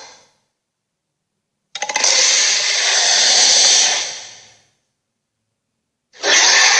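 Gorilla sound effect: a harsh, noisy call lasting about three seconds that begins about two seconds in and fades out, with the next call starting sharply near the end. Dead silence falls between the calls.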